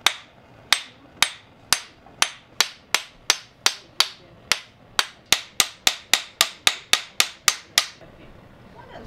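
Small hand hammer tapping a steel engraving chisel into a knife blade, metal on metal. About twenty sharp, ringing strikes come at about two a second, quicken to three or four a second past the middle, and stop about a second before the end.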